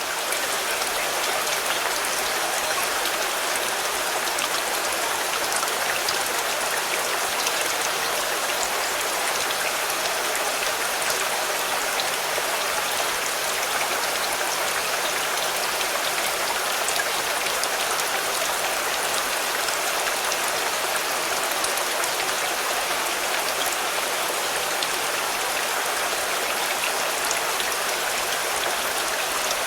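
Steady rain falling on a car, an even hiss with many small drop ticks and no change in strength.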